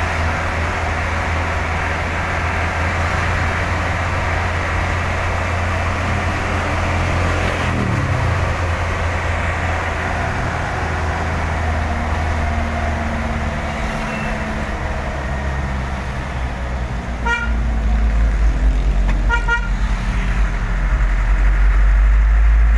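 A truck engine runs under load, heard from the cab while driving, as a steady low drone whose pitch drops once and shifts again later. A vehicle horn gives two quick series of short beeps about 17 and 19 seconds in.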